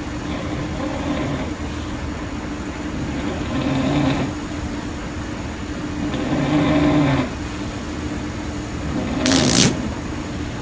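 Sleeping bulldog snoring, three long snores about three seconds apart, then a short, loud, sharp burst near the end: a fart.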